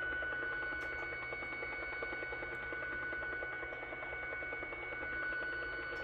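Shortwave signal on 12.220 MHz received in AM on a Yaesu FTdx10 and heard through its speaker: a set of steady tones held over a rapid, woodpecker-like pulsing background. The pulses sound much like the Soviet 'Russian Woodpecker' over-the-horizon radar, and the origin of the signal is unknown, a jammer or some other signal.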